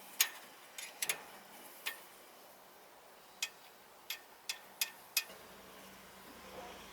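Scattered light metallic clicks and taps, about nine at uneven intervals, as small metal tools or parts are handled and set down.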